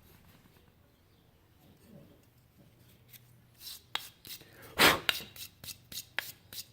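Hand brushing and rubbing the fuzz off a freshly scroll-sawn 1/2-inch pine cutout: short scraping strokes, a few a second, starting about three and a half seconds in, with one louder stroke near five seconds.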